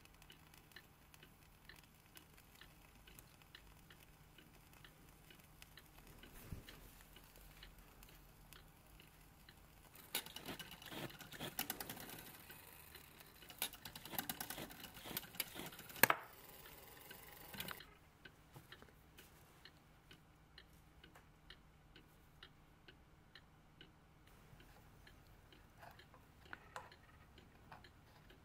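Faint bench-work sounds of handling a small brass clock part: light clicks and ticks throughout, with a busier stretch of scraping and clicking in the middle and one sharp click.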